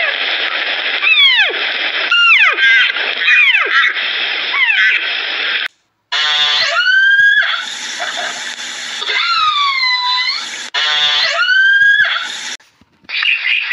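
High-pitched animal squeals in two separate bursts. The first is a run of squeals that each fall steeply in pitch, about one a second. After a brief break comes a set of squeals that rise and arch in pitch, over a steady hiss.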